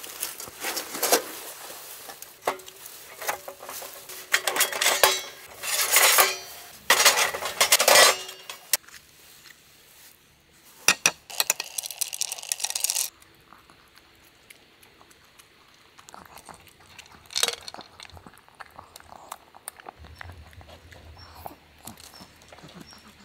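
Metal panels of a folding charcoal grill clattering and clanking as they are unpacked and set up for the first eight seconds or so. Then a burst of clicks as food is tipped from a glass jar onto a plastic plate and stirred with a spoon, one sharp knock later, and faint small ticks near the end.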